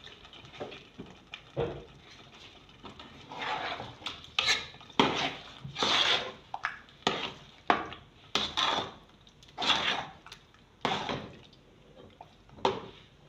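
A spoon stirring a thick chicken curry sauce with vegetables in a pot, scraping and knocking against the pot's sides and bottom. The strokes come in an irregular run and are quieter for the first few seconds.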